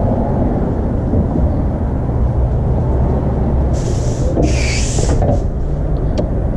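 Rustling and movement noise over a steady low rumble as someone walks to a car and gets into the driver's seat. There is a louder burst of rustling about four seconds in, and a few light clicks near the end.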